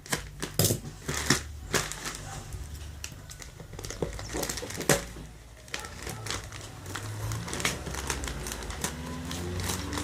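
A parcel being opened by hand: packaging crinkling and rustling, with many irregular sharp clicks and snaps, the loudest in the first couple of seconds and one about halfway through.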